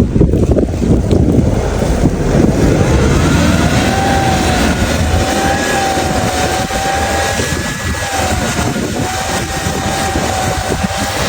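A motor vehicle running with a low rumbling noise; about a third of the way in a steady high whine slides up and holds, wavering slightly.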